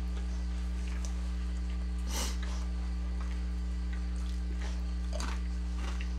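A man sniffing sharply with a runny nose from very hot chips, once clearly about two seconds in and more faintly later, with light crackles of chips handled on a paper towel. A steady low hum runs underneath.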